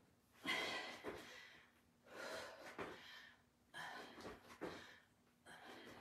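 A woman breathing hard from the exertion of repeated squats: a heavy, breathy exhale about every one and a half seconds, four in all.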